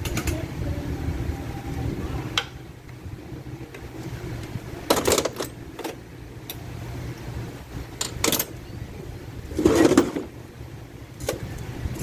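Scattered clicks and clunks of hand tools and parts being handled against a bare DPS6 dual-clutch transmission case, the heaviest knocks about five seconds in and just before ten seconds in, over a steady low hum.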